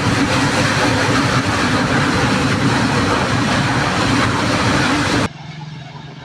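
Ruptured natural-gas pipeline burning: a loud, steady rush of escaping gas feeding the fire, with a deep rumble underneath. It cuts off abruptly about five seconds in, leaving a much quieter low hum.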